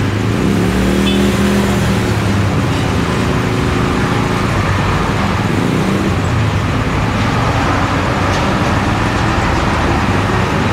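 Heavy diesel trucks passing close by, their engines running loudly over steady traffic noise. The engine note is strongest in the first half.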